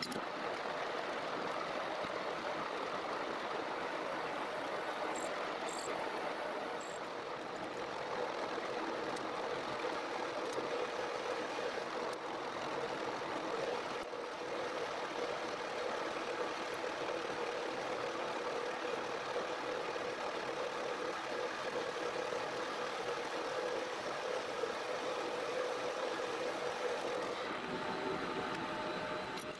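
Metal-turning lathe running under power, turning a metal bar held in its chuck: a steady mechanical drone from the spindle and gearbox with a steady tone running through it.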